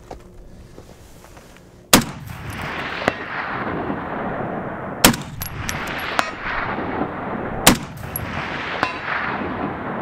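Three single shots from a SIG-Sauer 716i Tread semi-automatic rifle in 7.62x51mm (.308 Win), about three seconds apart, each trailing off in a short echo. About a second after each shot comes a faint, short ping, typical of the bullet striking a distant steel target.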